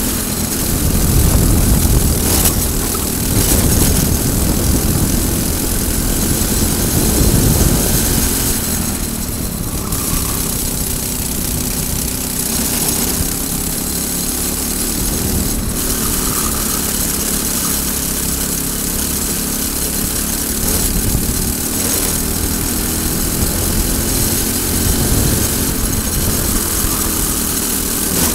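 Briggs & Stratton single-cylinder four-stroke kart engine at racing speed, its revs rising and falling through the corners between about 4,000 and 5,200 rpm. Wind rush over the onboard microphone is heard with it.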